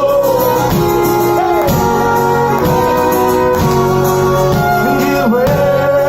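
Live band music: an instrumental passage of the song, with held notes that bend in pitch over a steady accompaniment.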